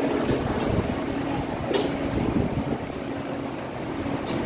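Steady low mechanical hum with a faint steady tone through it, and one short sharp click near the middle.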